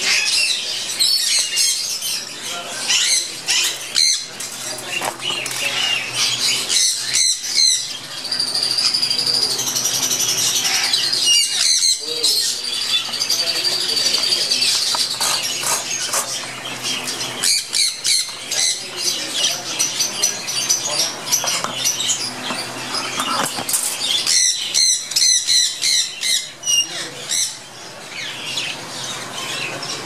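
A flock of caged budgerigars chattering without pause: fast, high chirps and warbling calls, thicker in some stretches, for example around ten to fifteen seconds in and again near twenty-five seconds.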